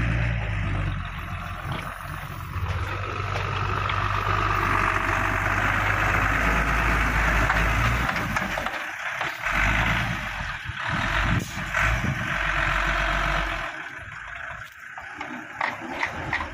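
A Hino truck's diesel engine running at a steady low pitch. It breaks off abruptly about eight seconds in, comes back for a few seconds, then stops, leaving only scattered clatter near the end.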